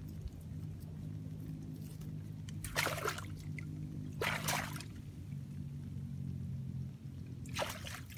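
Bare hands digging into waterlogged mud at a mud crab burrow: three short wet sloshing squelches about three, four and a half, and seven and a half seconds in, over a steady low hum.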